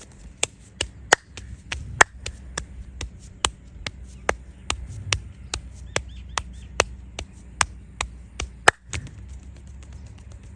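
Rapid percussive hand strikes of a head massage: sharp slaps or chops on the head, about three a second, with two louder cracks, the last near the end, after which the striking stops.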